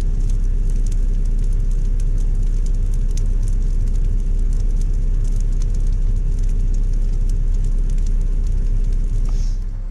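Volvo EC140EL excavator's diesel engine running steadily, with sharp crackles from a burning brush pile over it. The engine sound eases slightly near the end.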